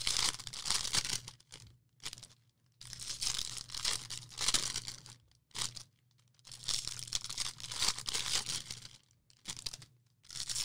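Foil wrappers of baseball card packs being torn open and crinkled: several bouts of crackly rustling, each a couple of seconds long, with short pauses between.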